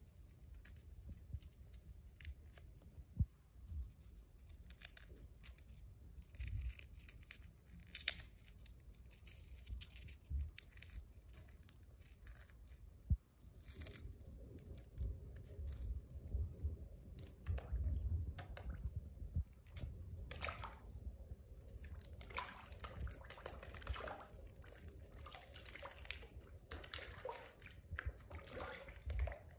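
Faint, irregular drips and light splashes on the surface of a goldfish pool, from bread landing on the water and goldfish feeding at the surface, with scattered small crackles. The water sounds grow busier in the second half.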